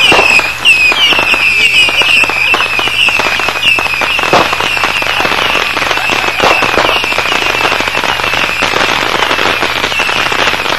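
Fireworks going off in a dense, continuous run: rapid firecracker pops and crackle throughout, with short whistles repeating several times a second and one louder bang about four seconds in.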